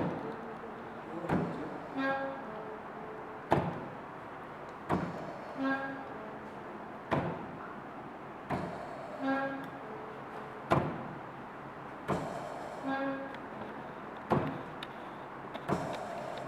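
Locally made mechanical ventilator cycling steadily, about every three and a half seconds: a short motor hum, two sharp clicks per cycle and a brief hiss.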